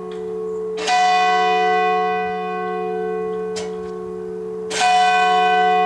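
Church bell tolling: two loud strokes about four seconds apart, with a fainter stroke between, each leaving a long ringing hum that overlaps the next.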